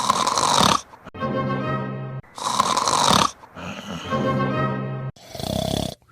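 A man snoring loudly, three snores about two and a half seconds apart, with short stretches of music played in the gaps between them.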